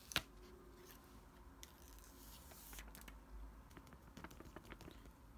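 Clear protective plastic film being peeled off the glass back of an iPhone X: faint crinkling and crackling with scattered small clicks, and a sharper click just after the start.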